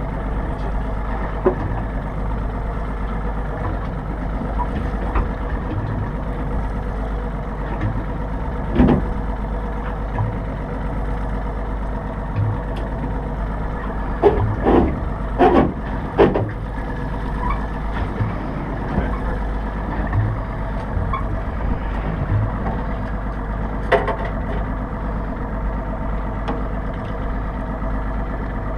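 A steady low motor hum on the tagging boat, broken by a few knocks and clunks. The loudest knocks are a cluster of bangs about halfway through.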